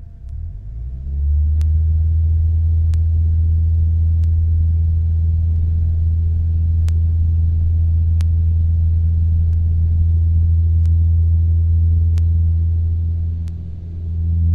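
Cessna 172 engine throttling up over about a second to a steady, loud high-power drone, as for a takeoff roll, easing slightly near the end. A faint click repeats about every second and a bit.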